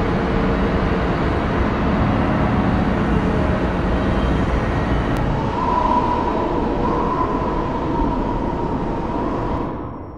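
Steady low rumbling noise, with a wavering high whine joining about halfway through, fading out near the end.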